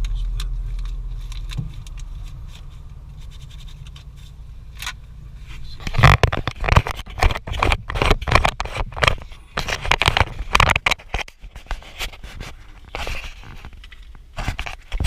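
Close handling noise from a GoPro camera being picked up and held: irregular scraping, knocking and rubbing of fingers on the housing, starting about six seconds in. Before that a low car rumble fades away.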